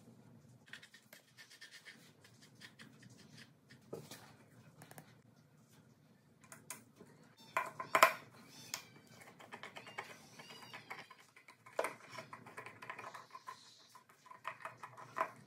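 Irregular clicks, taps and knocks of washing-machine parts being handled during repair, the loudest about eight seconds in.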